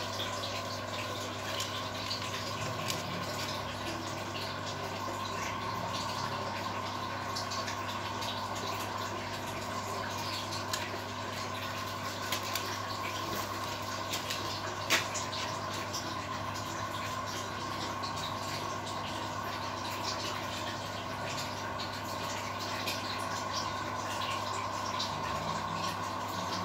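Aquarium aeration bubbling steadily: a constant low hum under the fizz and fine ticking of streams of rising air bubbles, with an occasional sharper tick, one about fifteen seconds in.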